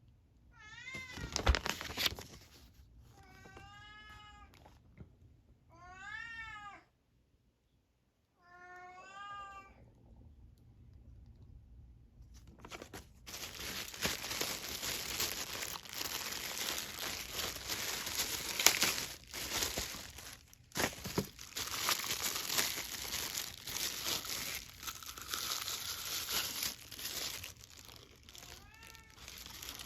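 A cat meows four times in the first third, each call rising and falling and about a second long. From about halfway, plastic packaging crinkles and rustles as it is handled, with one more short meow near the end.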